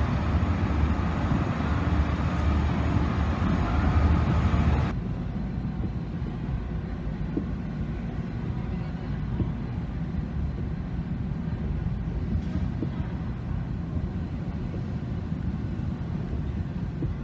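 Steady low drone on a ferry's enclosed car deck. About five seconds in it cuts to a quieter, muffled low rumble heard from inside a car rolling slowly off the ferry, with a few faint knocks.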